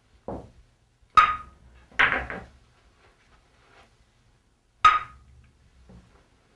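Pool cue and balls on a pool table: a soft knock at the start, a sharp ringing click about a second in, a short clatter around two seconds, and a second sharp click near the five-second mark.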